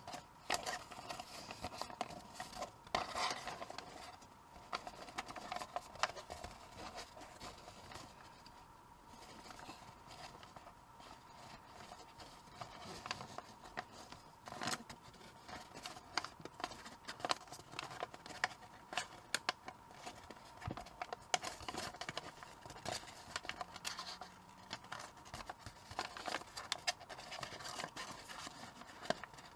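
A sheet of origami paper being folded and creased by hand: irregular crackling, rustling and scraping of the paper.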